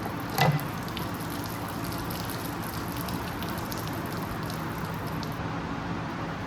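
Steady workshop background hiss with a low hum. About half a second in there is one short, sharp sound that drops in pitch, and faint light ticks follow.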